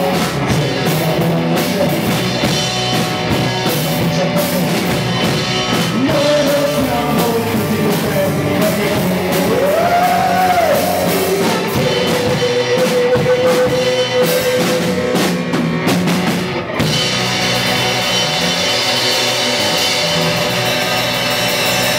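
Live rock band playing a cover of an Italian cartoon theme: distorted electric guitars, electric bass and drum kit, with a male lead voice singing. About three quarters of the way through the music stops sharply for a moment and comes back in a new section.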